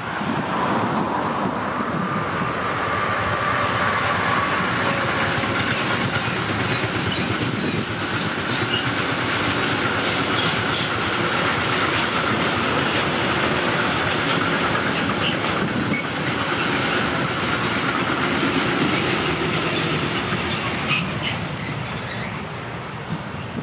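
Long freight train of covered steel-coil wagons behind an electric locomotive rolling past: a steady noise of wheels on rail and rattling wagons, easing off near the end as the train draws away.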